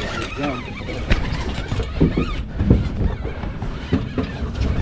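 Wind buffeting the microphone in a steady low rumble, with brief excited voices breaking in over it.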